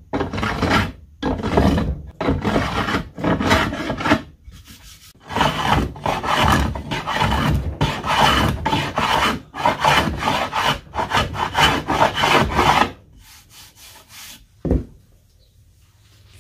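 Hand plane shaving along the edge of a glued-up walnut and maple paddle blank, knocking off dried glue beads: about fifteen quick rasping strokes, which stop about three seconds before the end, followed by a single light knock.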